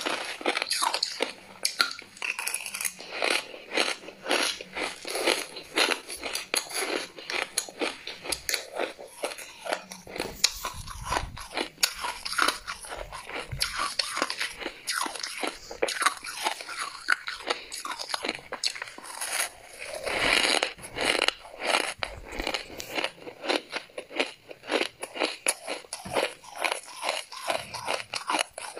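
Close-miked biting and chewing of freezer frost: a dense, continuous run of crisp crunches as a chunk of packed frost is bitten and crushed between the teeth.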